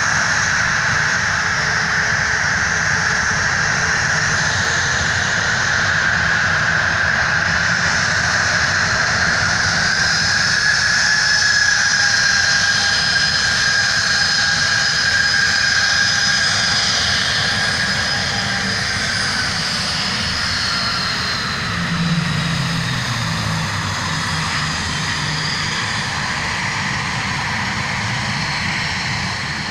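Boeing 737-700's CFM56-7B jet engines running at high power: a loud, steady rush with a high fan whine that slowly falls in pitch over the second half as the sound eases off.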